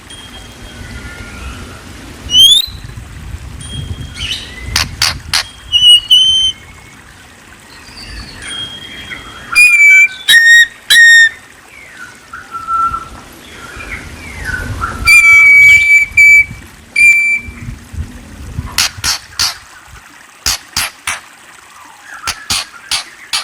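A songbird singing a varied song of clear whistled notes, some gliding and some held briefly, mixed with many sharp clicks. The loudest phrases come about ten and fifteen seconds in.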